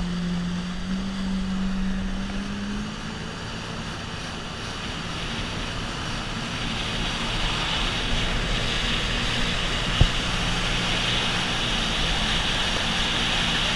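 Personal watercraft (jet ski) engine running at speed with the rushing hiss of its jet spray and wind. The engine note climbs a little in the first few seconds and then holds steady, the hiss grows louder after about five seconds, and there is a single sharp knock about ten seconds in.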